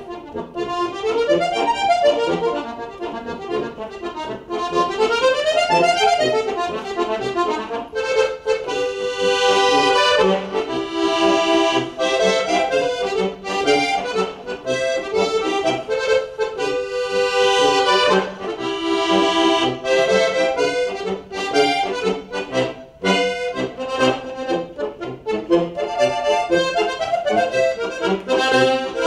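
Diatonic button accordion played solo in a lively folk tune: quick melodic runs up and down in the first several seconds, then fuller held chords over a pulsing bass.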